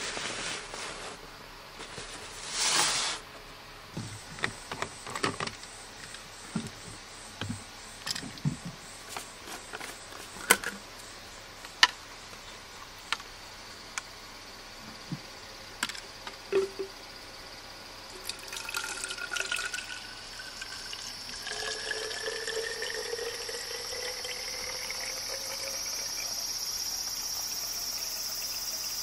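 Fabric rustling and light clicks and knocks as a bag and a plastic Nalgene bottle are handled. Then water is poured into the Nalgene bottle, the filling sound rising steadily in pitch for about ten seconds as the bottle fills.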